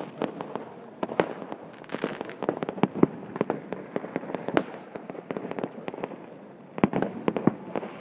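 Distant fireworks going off: many irregular sharp bangs and pops over a steady background crackle, with a denser cluster about seven seconds in.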